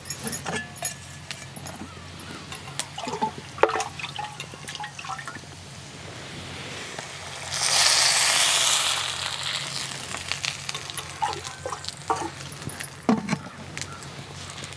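Water poured from a brass jug into a hot clay cooking pot of sautéed onions and vegetables, a rush of pouring and splashing lasting about two seconds near the middle. Light clicks and knocks of utensils come before and after it.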